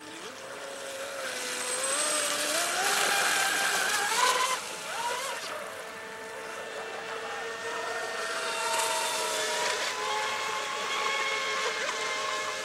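Pro Boat Blackjack RC catamaran's brushless electric motor whining as the boat runs at speed across the water, over a hiss of spray. The whine rises in pitch over the first few seconds, dips briefly, then holds fairly steady.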